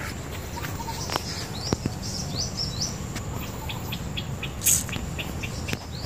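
Small birds chirping outdoors: a run of short rising high notes, then a quick series of short chirps about four a second, with one louder call near the end, over a steady low background rumble.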